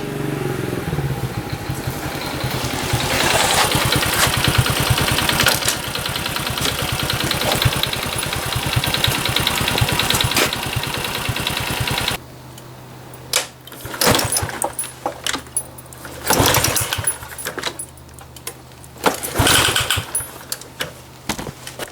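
Honda Super Cub 50's air-cooled single-cylinder four-stroke engine running with a rapid, even beat, cutting off abruptly about twelve seconds in. Several separate sharp knocks and clatters follow.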